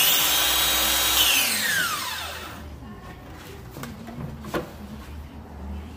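Circular saw started with a short pull of the trigger: the motor spins up at once, runs steady for about a second, then winds down with a falling whine once the trigger is released. A single knock follows a couple of seconds later.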